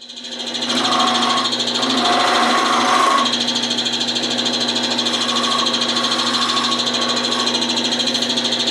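Wood lathe running with a steady motor whine while a gouge cuts the end of a spinning bottle-stopper blank, rounding off the tip. The cut is loudest from about one to three seconds in.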